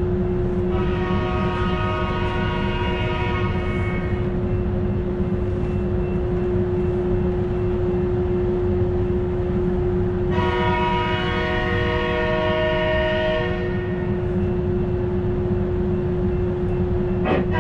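Two long train-horn blasts, each a chord of several notes lasting about three seconds, the first about a second in and the second about ten seconds in. They sound over the steady low rumble and hum of the stopped passenger train.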